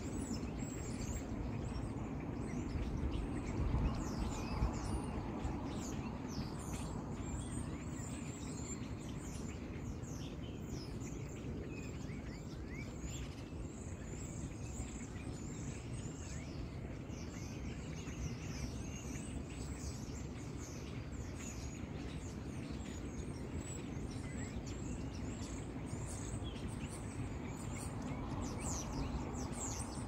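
Many small birds chirping, a continuous chatter of short, high calls overlapping one another, over a steady low background rumble.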